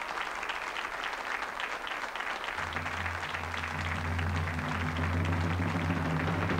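An audience applauding with dense, steady clapping; about two and a half seconds in, music enters with low sustained notes underneath.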